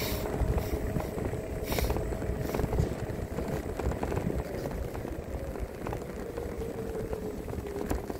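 Wind rumbling on the microphone and the rumble of wheels over paving while riding along a street, with a faint steady whine underneath.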